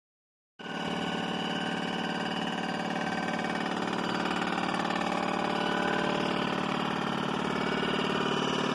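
Cylinder-head resurfacing machine running, its large rotary cutter head passing over the deck of a 12-valve Cummins cast-iron cylinder head to skim it flat. A steady machine hum that starts abruptly about half a second in and grows slightly louder.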